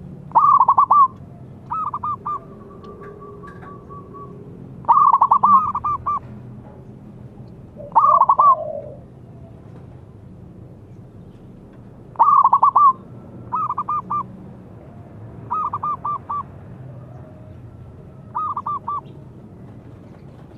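Zebra dove (perkutut) cooing: eight short phrases of quick stuttering coos, some loud and some softer.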